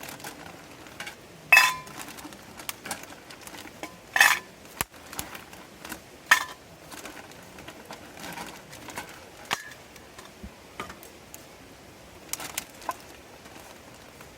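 Metal cookware and utensils clinking and clattering as they are handled. Three louder ringing clanks come about one and a half, four and six seconds in, among lighter knocks.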